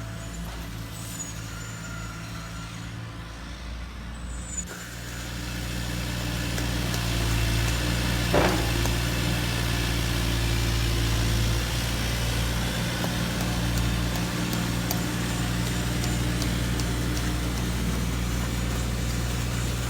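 Engine sound of RC model construction trucks: a steady low drone that grows louder from about five seconds in, as a loaded dumper truck drives off, with a brief sharp sound a few seconds later.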